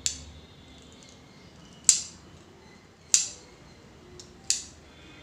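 Handheld spring-loaded facial threading tool snapping shut four times, roughly every second and a half, as its twisted thread plucks upper-lip hair. Each snap is a sharp click.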